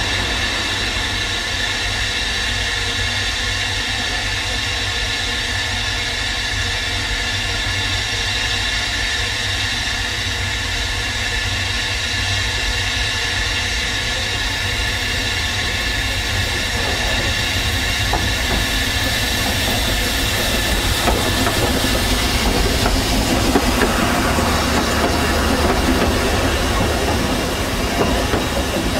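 Narrow-gauge steam train, locomotive and wooden carriages, approaching and then running past at low speed. The sound grows louder about two-thirds of the way in, with wheel clatter over the rail joints.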